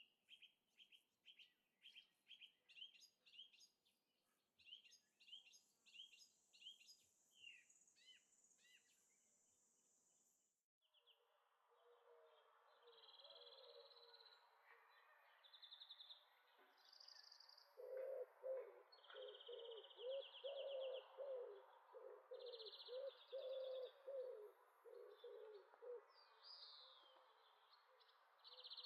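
Faint outdoor animal chirps, repeated about twice a second, with a thin steady high tone over part of them. About ten seconds in, the sound changes abruptly to a steady hiss with short high trills and a run of lower repeated notes.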